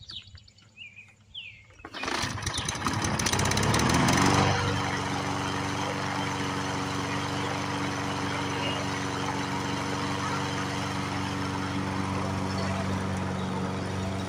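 Briggs & Stratton 550-series single-cylinder push-mower engine starting up about two seconds in. It revs up briefly, then settles into a steady run.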